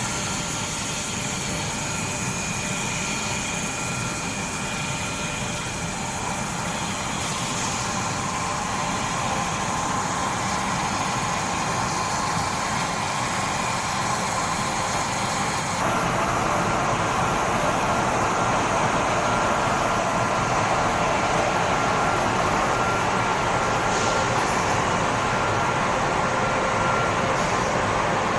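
Steady machinery noise of an automotive glass processing line, its conveyors and motors running, with a few faint constant whines over the hum. A little past halfway the noise gets louder and brighter.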